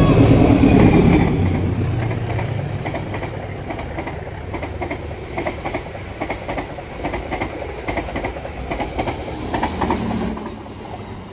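A diesel-electric locomotive hauling a passenger train passes close by, loudest in the first second or so. Its coaches then roll past with a rhythmic clickety-clack of wheels over the rail joints, which fades about ten seconds in as the last coach goes by.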